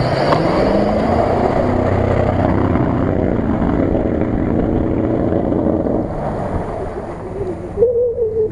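Land Rover Discovery's engine revving up as it pulls away, then running hard under load through deep mud and water with splashing. The sound fades after about six seconds as the vehicle drives off.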